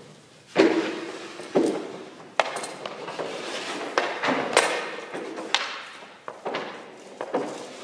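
A run of about eight sharp, irregular knocks and clacks, each with a short ring, from a hockey goalie's stick, pucks and gear striking the hard synthetic-ice surface and net.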